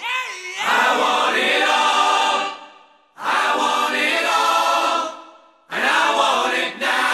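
Background music: choir-like voices holding chords in phrases of about two seconds, with short breaks between them.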